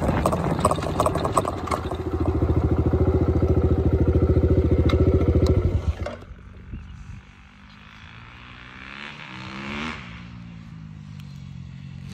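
A nearby engine runs loud with a fast, even pulse, then drops away sharply about halfway through. A quieter engine then passes, rising in pitch and falling again near the end.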